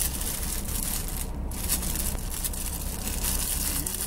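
A cloth mailing pouch being handled and opened right at the microphone: continuous rustling and crinkling with many small scratchy crackles, over a steady low hum.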